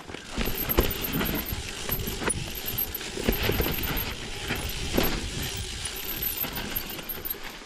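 Mountain bike riding over a rooty trail: tyres on dirt with irregular knocks and rattling as the bike hits roots.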